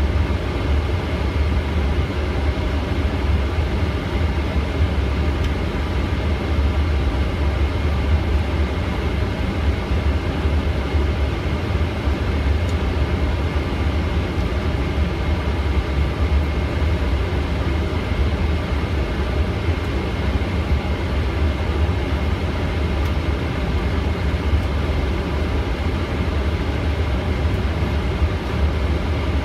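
Steady flight-deck noise of a Boeing 777 taxiing slowly in to its stand with the engines at idle: a constant deep rumble with a faint steady high whine over it.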